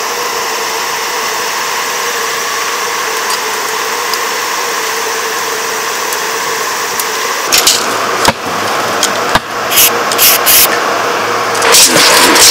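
An engine running steadily, then a run of sharp knocks and clanks from about seven and a half seconds in, coming faster near the end.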